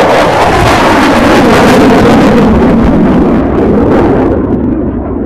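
F-16 fighter jet passing close in its takeoff climb with the afterburner lit: a loud jet roar whose pitch falls as it goes by, thinning out after about four seconds as it climbs away.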